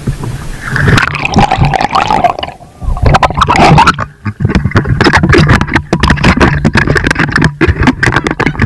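Shallow seawater splashing and sloshing right at the microphone as it is carried through the water by someone wading, many quick splashes in a row, with a steady low hum underneath.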